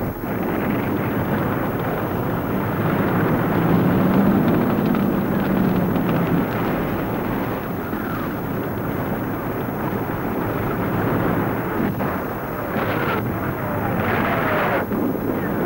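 Battle noise laid over archival war footage: a continuous heavy rumble of explosions and engines, with a droning tone between about four and six seconds in and louder blasts near the end.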